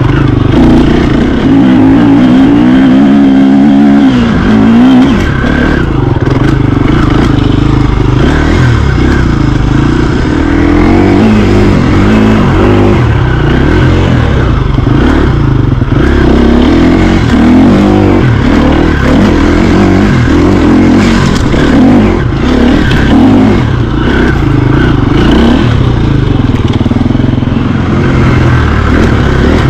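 A mountain bike being ridden on a trail: steady wind rumble on the microphone over tyre noise, with scattered clatter and knocks from the bike on rough ground.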